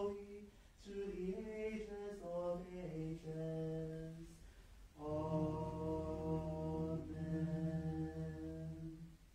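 Western-rite liturgical plainchant sung unaccompanied: a phrase moving from note to note, then after a brief break a long held note that stops just before the end.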